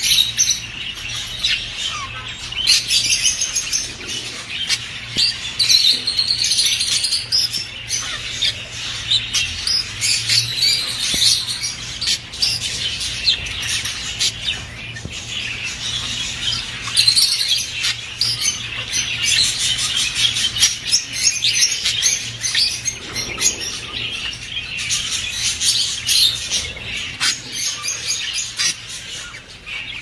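A flock of budgerigars chattering and warbling without a break: a dense mix of quick high chirps, clicks and squeaky notes.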